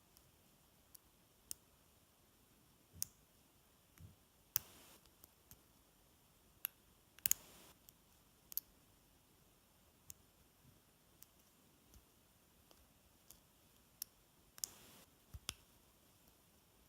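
Lock pick and tension wrench working the pin tumblers of an American Lock Series 50 padlock during single-pin picking. Faint, irregular clicks come as pins are probed and set, with a few short metal scrapes of the pick in the keyway.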